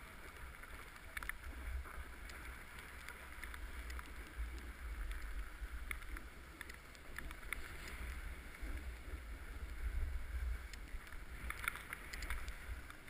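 Snowboard sliding and turning over snow: a steady scraping hiss with scattered clicks and scrapes, over a low wind rumble on the microphone.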